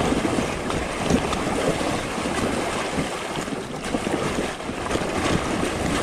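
Fat bike tyres splashing and churning through a shallow, rocky river, over the steady rush of the flowing water, with many small splashes throughout.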